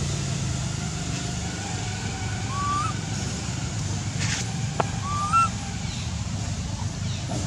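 A steady low rumble with two short, rising animal calls, one about two and a half seconds in and one about five seconds in, and a sharp click just before the second call.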